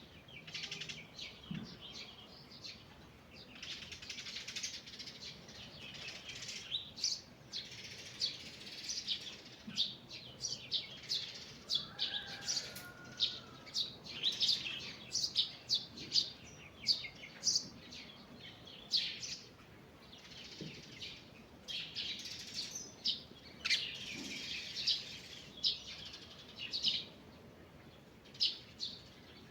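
Forest birds singing, many short high chirps and trills overlapping throughout, with a lower whistled phrase about twelve seconds in.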